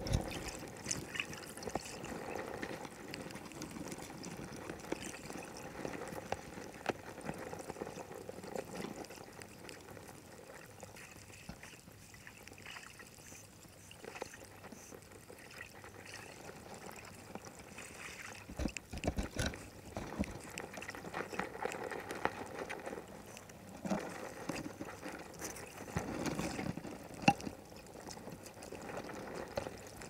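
Muffled underwater sound of sea water moving around a camera on the seabed, with scattered small clicks and a few low knocks, bunched about two-thirds of the way in and again near the end.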